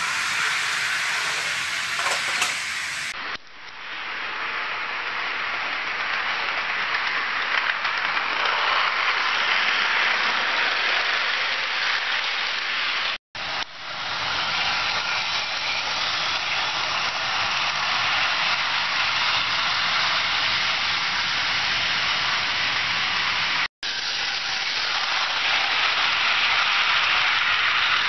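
HO scale model train running on plastic roadbed track: a steady whir of wheels and motor, with two brief dropouts.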